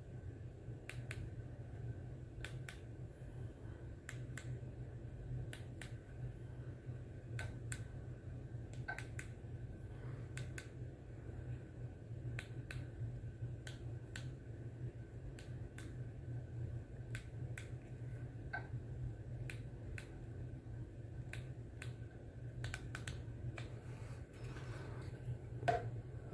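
Small ceiling fan running with a steady low hum, with short sharp clicks about once a second at uneven spacing.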